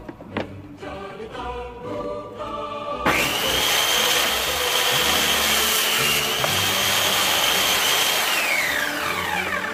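Circular saw switched on suddenly, running at speed with a steady high whine for about five seconds, then winding down after switch-off with the whine falling in pitch. Backing music plays before the saw starts.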